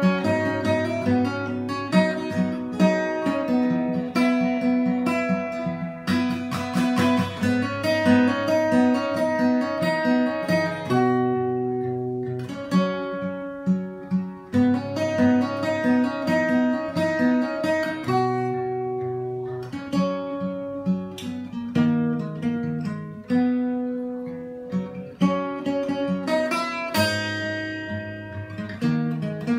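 Fingerstyle acoustic guitar played with a capo: a plucked melody over bass notes with chords ringing out, and a passage of quick strummed chords about six seconds in.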